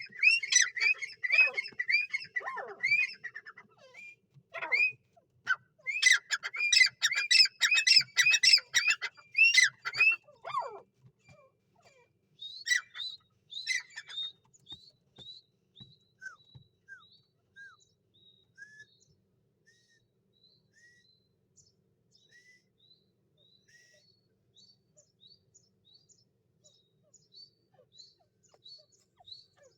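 Grey francolin calling: loud, rapid runs of repeated shrill, up-sweeping notes for about the first ten seconds, then a slower series of short chirps that fades away.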